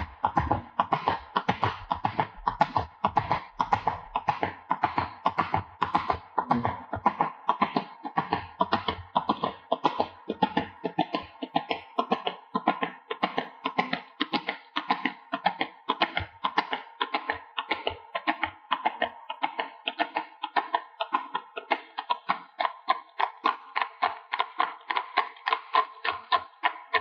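Horse's hooves clopping at a walk, an even, unbroken rhythm of sharp knocks.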